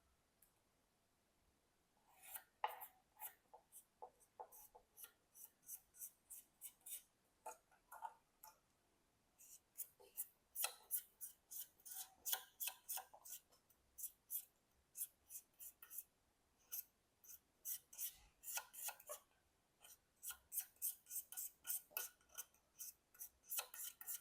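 Faint, short scraping strokes as old thermal paste is scraped off an Intel Core 2 Duo CPU's metal lid. They start about two seconds in and come in quick runs with short pauses.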